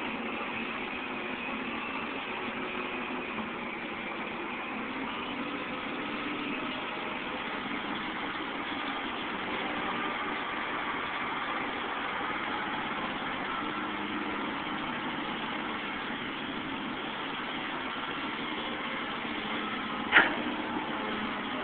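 Caterpillar 235 excavator's diesel engine running steadily. A single sharp knock about twenty seconds in stands out as the loudest sound.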